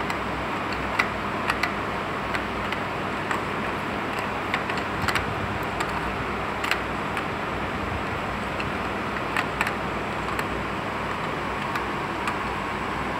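Irregular light metallic clicks as a brass radiator pressure cap on an Isuzu diesel pump engine is turned and seated, over a steady background rush of noise.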